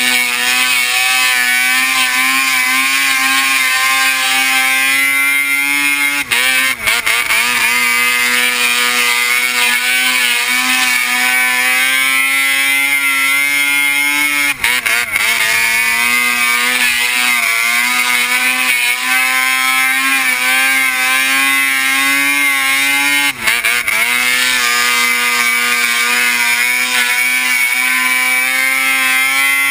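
Arctic Cat watercross snowmobile's two-stroke engine held at high revs as the sled skims across open water, over a constant rushing hiss of spray and wind. Three times the revs dip for a moment and climb straight back.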